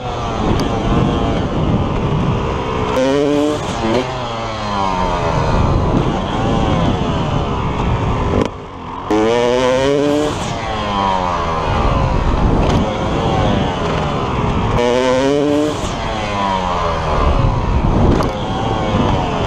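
Dirt bike engine heard close from the rider's helmet, revving up and down again and again as the rider opens and closes the throttle. The throttle snaps shut briefly about eight and a half seconds in, then the revs climb steeply again.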